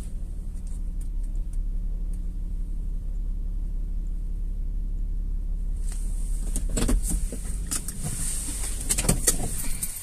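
Car engine running with a steady low rumble. From about six seconds in, a run of clicks and knocks with a hiss comes over it.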